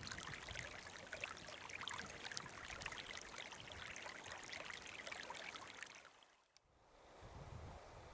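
Small stream babbling and trickling over stones, with a steady dense patter, fading out about six seconds in. A fainter steady outdoor hiss with a few low rumbles follows.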